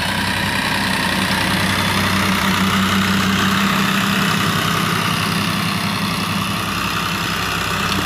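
TAFE farm tractor's diesel engine running steadily at a constant note as it pulls a tine cultivator through dry field soil.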